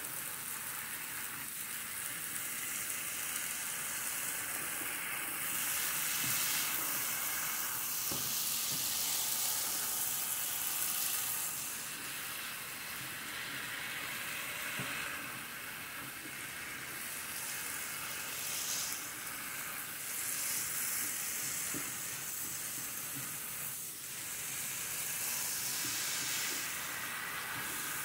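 Vegetables and spaghetti squash sizzling steadily in an electric skillet while being stirred with a silicone spatula, with faint soft scrapes of the stirring.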